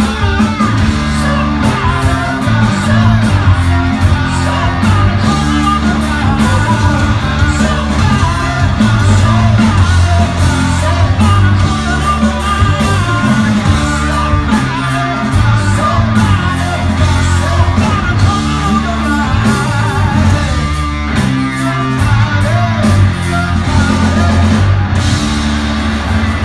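Live rock band playing loudly: a singer over electric guitars, bass and drums, heard from the audience in a club hall.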